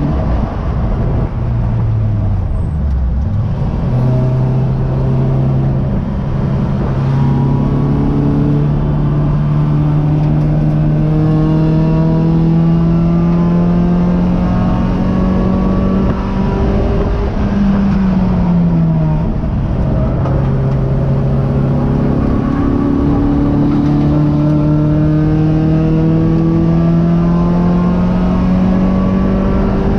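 Race car engine heard from inside the cockpit, held under power as its pitch climbs slowly through two long pulls. The pitch drops quickly for a lift or downshift near the start, again a little past halfway, and at the very end. Steady road and wind noise lies underneath.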